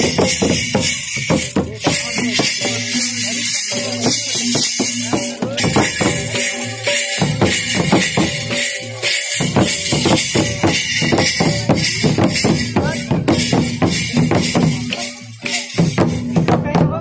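Folk dance drumming: a large hand-beaten drum and a pair of metal hand cymbals play a fast, dense rhythm that goes on without a break.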